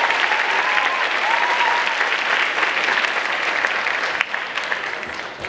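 Audience applauding in an auditorium; the clapping dies down near the end.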